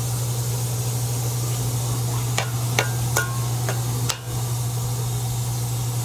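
Metal spoon clinking and scraping against a cooking pot as sausage pieces in tomato sauce are stirred, several sharp clinks in the middle, over a steady hiss and a low hum.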